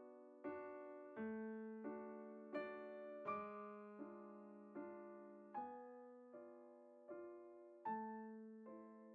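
Quiet background piano music: slow, even notes and chords struck about every three-quarters of a second, each left to ring and fade.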